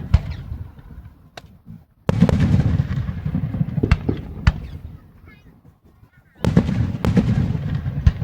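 Fireworks going off: a string of sharp bangs, with two big bursts about two seconds and six and a half seconds in, each followed by a low rumble that dies away.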